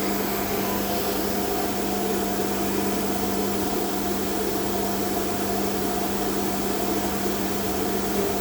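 CNC machine with a 4-axis rotary running steadily, a constant hum over an even machine noise.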